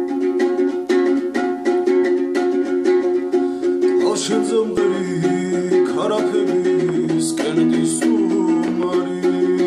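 A small acoustic string instrument strummed in a steady rhythm, and about four seconds in a man's voice begins singing a Georgian song over it.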